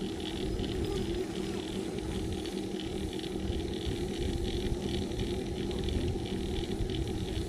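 Track bike spinning on a warm-up trainer, giving a steady whir with a constant low hum.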